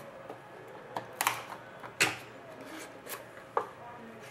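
Hockey trading cards being handled: about five sharp clicks and snaps of card stock, the loudest two about a second and two seconds in.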